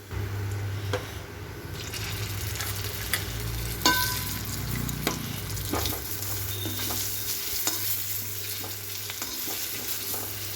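Stuffed whole potatoes frying in hot oil in a kadhai: a steady sizzle, with scattered clicks and knocks of a utensil against the pan as they are turned. One louder metallic clink rings briefly about four seconds in.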